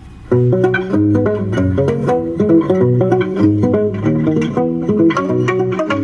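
Instrumental guitar music with a bass line, played through a small Bluetooth speaker. A new track starts about a third of a second in, after a brief gap.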